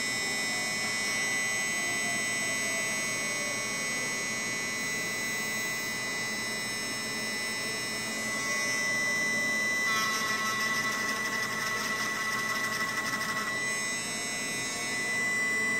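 Small handheld electric rotary tool (pen-style micro grinder) running with a steady high whine as its fine bit grinds down a hardened epoxy putty part. About ten seconds in the whine grows louder and flutters for some three seconds before settling back.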